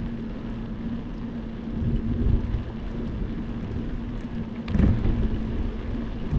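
Wind buffeting the microphone of a camera moving along a paved bike path, with a constant low rumble and a steady low hum underneath. Louder thumps or gusts come about two seconds in and again just before five seconds.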